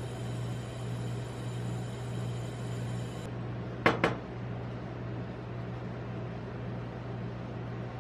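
Two sharp metal clacks close together about four seconds in, metal spatulas striking the steel plate of a rolled ice cream stand, over a steady low machine hum.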